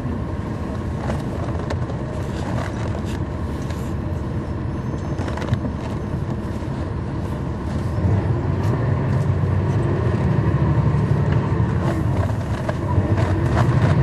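Heard from inside a 2011 NABI 40-SFW transit bus: its Cummins ISL9 diesel engine running while the bus is under way, with light clicks and rattles. About eight seconds in the engine grows louder and deeper, eases briefly near the end, then rises again.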